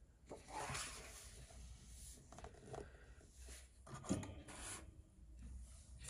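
Faint rustle of paper: a colouring-book page being turned and slid flat by hand, with two soft swishes, about a second in and again about four and a half seconds in, and light paper ticks between.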